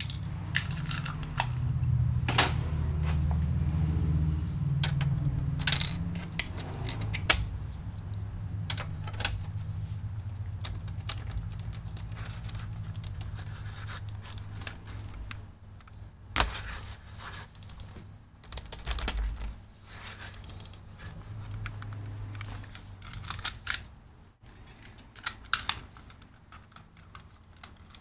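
Scattered clicks and taps of computer keyboard keys being pressed, over a low hum that is strongest in the first several seconds. The keyboard is not working, so the key presses get no response from the computer.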